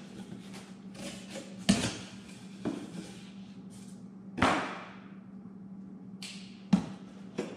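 A cardboard box being unpacked on a metal table: several sharp knocks and thuds as the box and its contents are handled, and a short rustle of cardboard about four and a half seconds in. A steady low hum runs underneath.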